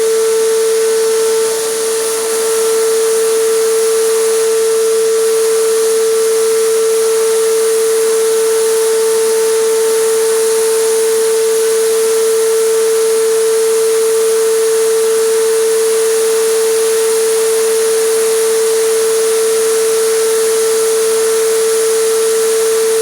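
Air compressor running with a steady, constant whine while a spray gun hisses out acrylic resin; the hiss dips briefly about two seconds in.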